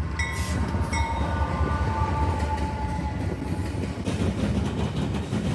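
Norfolk Southern auto rack freight train passing close by behind an AC44C6M locomotive, a steady low rumble throughout. Several high steady tones sound over the first three seconds, then fade.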